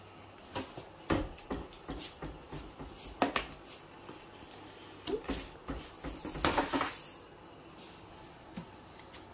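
Scattered knocks, clicks and bumps of things being handled in a kitchen, with a longer rattling scrape about six and a half seconds in.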